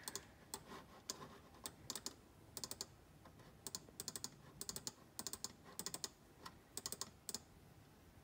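Faint typing on a computer keyboard: scattered key clicks and short quick runs of keystrokes.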